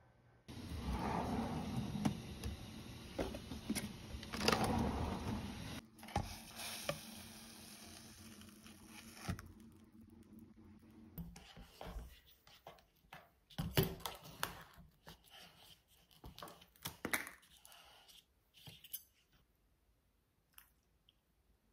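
Handling noises from household objects: a dense rushing noise for about nine seconds, then scattered clicks and clinks that die away near the end.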